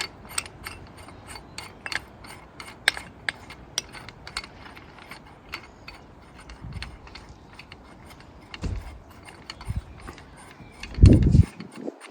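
Hand ratchet wrench clicking in runs as bolts on a Mazda 13B rotary engine are run down by hand, with a short dull thump near the end.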